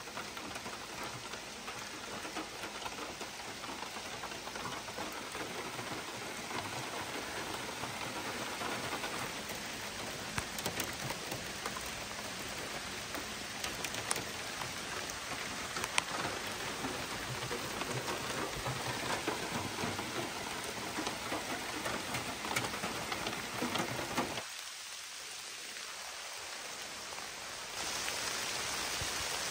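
Heavy rain falling on the trees, a steady hiss with scattered sharp drop hits. Near the end the low part of the sound falls away and the hiss thins, then turns brighter.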